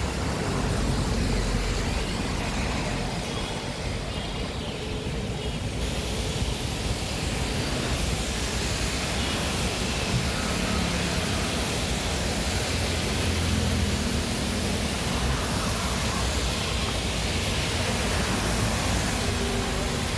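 Steady noise of a flooded street: running floodwater with vehicles passing through it.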